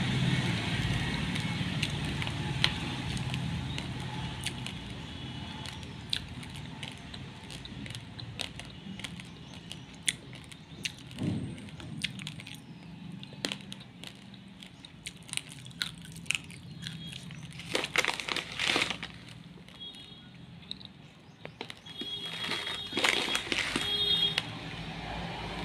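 Plastic rice bag crinkling and dry raw basmati grains shifting and pattering as a hand digs in and scoops a handful, in two crackly bursts in the second half. Before that there are only scattered faint clicks over a steady low background hum.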